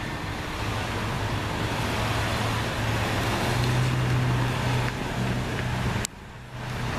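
Road traffic noise with a vehicle going by, its engine hum growing louder to a peak around four seconds in. About six seconds in there is a sharp click and a brief drop-out of about half a second.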